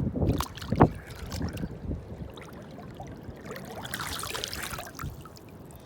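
Lake water splashing and trickling as a big bass is released back into the water. There is a sharp splash about a second in, then softer trickling and dripping.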